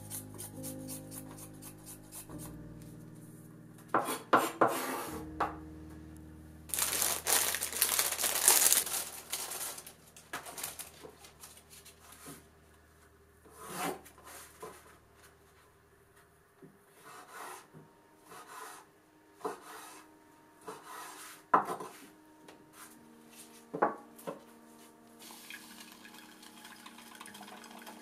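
Kitchen knife cutting burdock root on a wooden cutting board: sharp knocks of the blade on the board, a few seconds of scraping across the board, then scattered light taps as the cut pieces are handled. Soft sustained music tones sound in the first few seconds.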